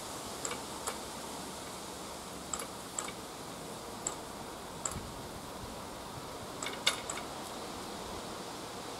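Outdoor background hiss with short, sharp ticks scattered through it, in ones and twos every second or so, the loudest a small cluster about seven seconds in.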